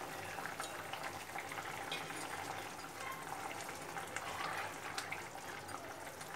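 Thin mango-and-mustard-oil broth bubbling at a boil in a steel kadai, with small pops and crackles. A spatula stirs the fried fish through it.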